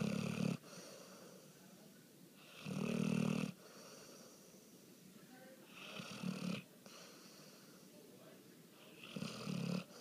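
Sleeping dog snoring: buzzing snores about a second long, one every three seconds or so, the first ending just after the start.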